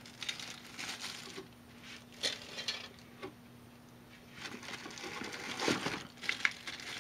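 Hands handling packaging and small parts: scattered clicks, taps and plastic bag crinkling, busier near the end as a bagged transformer is lifted out, over a faint steady hum.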